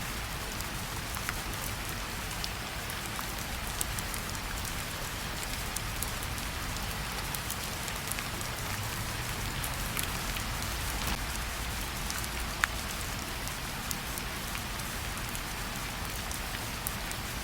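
Steady rainfall, with scattered drops ticking.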